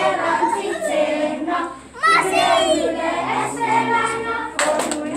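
Children and adults singing a song together in unison during a circle game. Several sharp claps come near the end.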